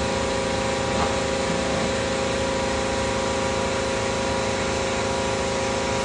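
Construction-site machinery running steadily: an even hiss with a constant pitched hum, no change in speed.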